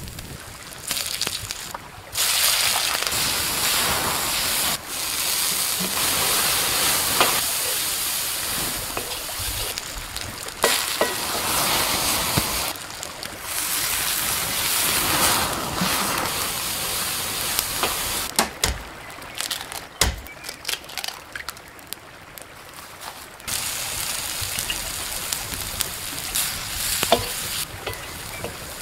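Food frying in oil in a shallow metal pan over a campfire: vegetables and chopped tomatoes sizzling, in stretches that start and stop abruptly. A wooden spatula scrapes and taps the pan now and then.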